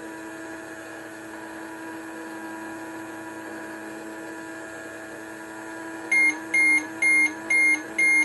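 Toy magic microwave running its cooking cycle: a steady electronic hum for about six seconds, then five short beeps about half a second apart signalling the cycle is done.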